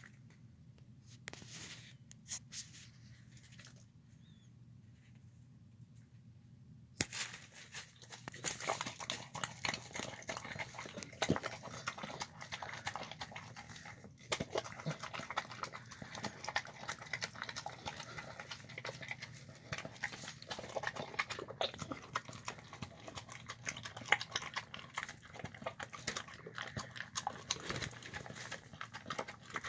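A shar-pei–pit bull mix eating rice and beans from a plastic tub: dense, irregular chewing, smacking and licking that starts suddenly about seven seconds in, after a quiet opening with a few faint clicks.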